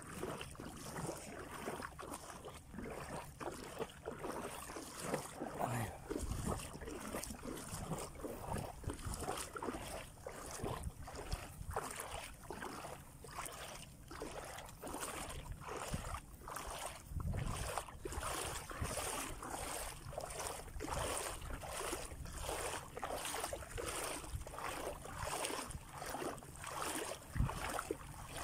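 Shallow seawater sloshing and splashing in a rapid, uneven run of small surges, with low gusts of wind buffeting the microphone now and then.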